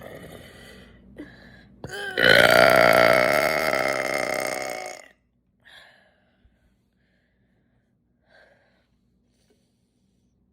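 One long, loud deliberate burp from a person, lasting about three seconds at a fairly steady pitch and cutting off abruptly.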